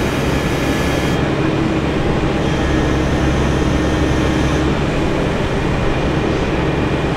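Heavy engine running steadily at a constant speed, a loud, even drone with a low hum.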